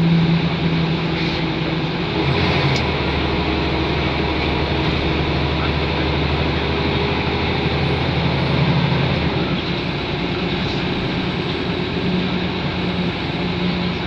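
Inside a Scania L94UB Wright Solar bus on the move: the engine and drivetrain run with a steady whirring. The pitch drops to a lower hum from about two seconds in, then rises again near the end.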